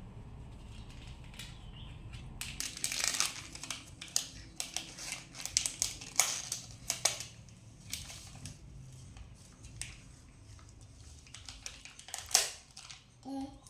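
Sticker sheets and their clear plastic wrapper crinkling and rustling as they are handled and peeled, in irregular crackles with a few louder clusters.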